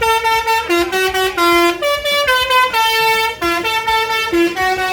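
Bus telolet horn playing a quick tune, its notes stepping from one pitch to the next every fraction of a second.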